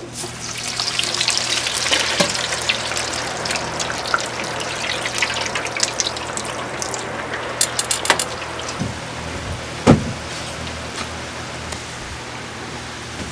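Hot oil in a deep fryer sizzling and crackling hard as a batch of food goes in, easing off gradually over the next several seconds. A few sharp metal clicks come about eight seconds in, and a single knock follows about ten seconds in.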